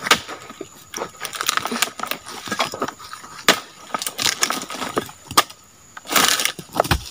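An oil palm harvesting chisel (dodos) chopping into the base of a palm frond, a run of sharp cracking strikes about one or two a second. About six seconds in comes a longer rustling, crackling noise.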